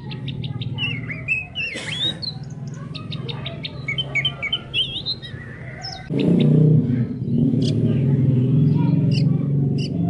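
Oriental magpie-robin singing: a run of quick, varied whistles, chirps and rising and falling glides. Underneath is a steady low drone that gets louder about six seconds in.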